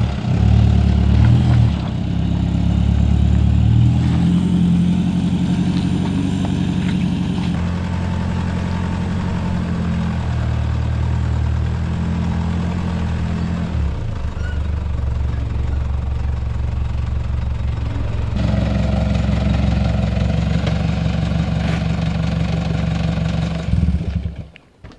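Toyota Prado's engine running at low revs under load as the 4x4 crawls over rough off-road ground, the engine note shifting every few seconds. It cuts off near the end.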